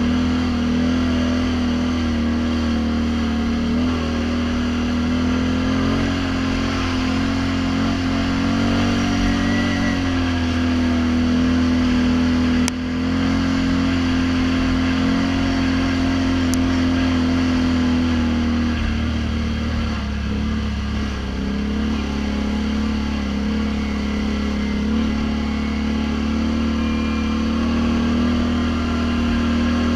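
Snorkeled ATV engine running steadily at trail-cruising speed, heard from the rider's seat, with the revs easing off briefly about twenty seconds in. A single sharp click sounds about thirteen seconds in.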